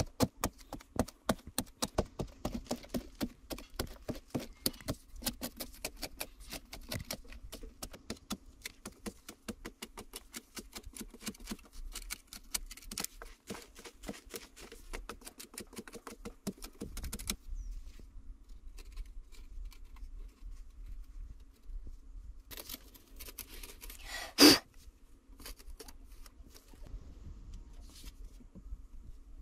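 Long machete-type knife blade scraping and shaving dried clay, in quick repeated strokes, several a second, for most of the first half, then slower, sparser scrapes. One much louder sharp knock comes about three-quarters of the way through.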